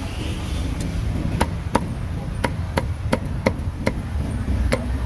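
Cleaver chopping roast meat on a chopping block: about nine sharp, irregular chops, roughly two a second.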